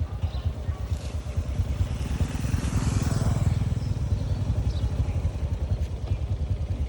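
Small motorcycle engine running steadily with rapid, even firing pulses, growing louder for a moment about two to four seconds in.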